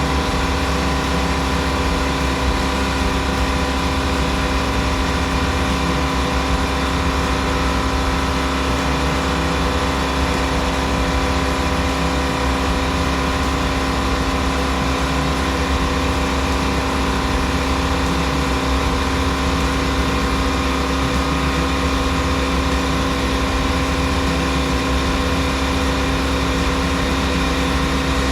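A steady machine drone: an even hum with several fixed tones that does not change in pitch or loudness.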